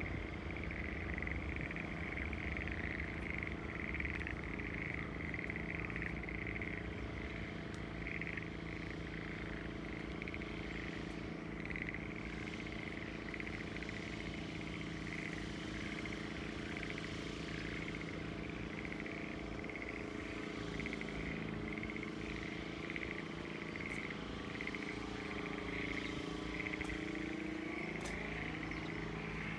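Frogs calling in a continuous chorus from flooded rice paddies, a pulsing trill repeated over and over, over the steady hum of a distant engine. Near the end an engine sound rises in pitch as a vehicle approaches.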